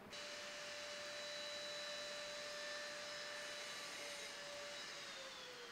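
Steady mechanical whirring hiss with a high whine, starting abruptly and holding, its pitch sliding down as it fades near the end.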